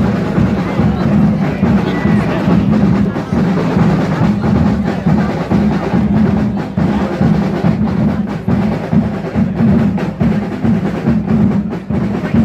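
Drums playing, a dense run of rapid strikes over a heavy low beat.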